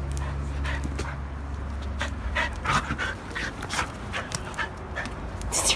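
A dog playing with a fabric toy held out to it, with a string of short, irregular breaths and scuffles that come thicker from about two seconds in.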